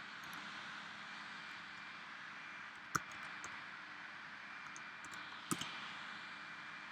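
Sparse clicks from a computer mouse and keyboard: a few light ticks and two sharper clicks about two and a half seconds apart, over a steady hiss with a faint high whine.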